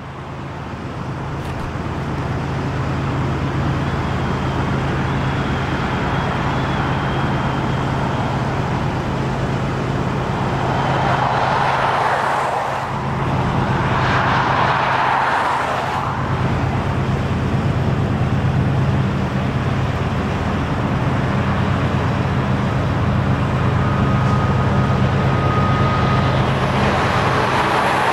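CP Rail intermodal train's diesel locomotives working along the far shore of the lake, a steady low drone throughout. Two louder swells of noise rise and fade around the middle, and another builds near the end.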